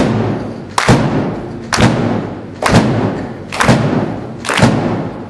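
Rock band playing live without vocals: heavy drum-and-cymbal hits land on the beat, six times a little under a second apart, each ringing out over sustained electric guitar and bass chords.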